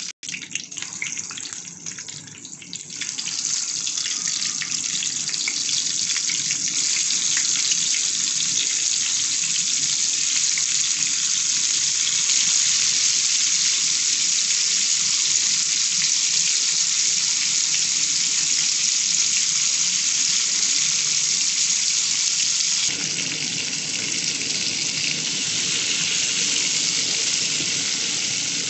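Curry leaves crackling in hot oil, then masala-marinated fish pieces frying in a shallow pan with a loud, steady sizzle. The sizzle turns slightly lower and fuller about five seconds before the end.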